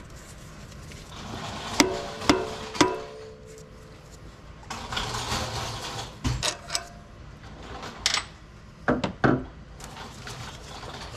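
Metal hand tools and parts clinking and knocking in an engine bay: three sharp, briefly ringing clinks about two seconds in, a stretch of scraping and rattling near the middle, then several more knocks.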